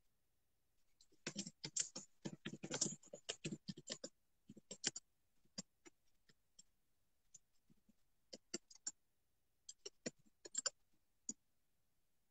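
Light taps and clicks from fingers on the phone that is recording. They come as a quick irregular run for a few seconds, then as scattered single taps.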